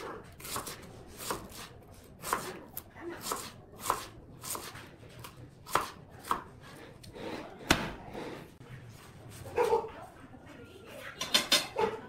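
Knife slicing through an onion, each stroke ending in a sharp knock of the blade on a wooden cutting board, about one or two cuts a second, with a quick run of knocks near the end.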